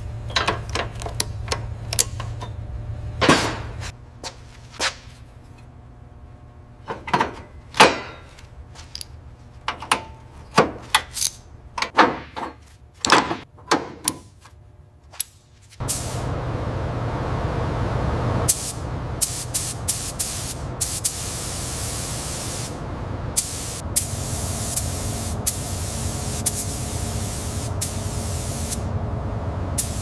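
Scattered sharp knocks and clicks over a low hum, then about halfway through a steady hissing spray starts suddenly and keeps going, with a few clicks over it.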